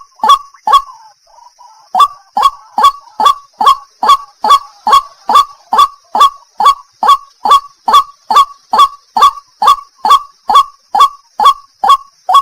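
White-breasted waterhen calling: a long, monotonous series of short croaking notes, each dropping in pitch, about two and a half a second, after a brief break about a second in. A steady faint high hiss runs underneath.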